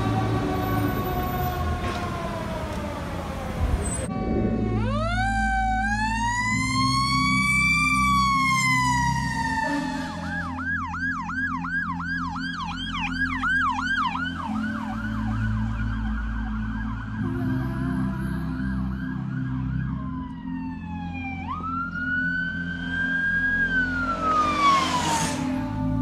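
Emergency-vehicle sirens: a siren tone falling away, then an electronic wail rising and falling, a fast yelp at about four cycles a second, and near the end another wail rising and falling. Music with a stepping bass line plays underneath.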